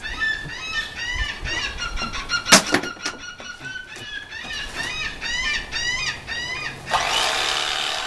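A bird calling over and over in short, high, squealing chirps, a few a second, typical of a bird begging for food. One sharp knock about two and a half seconds in, and near the end a steady hissing noise starts.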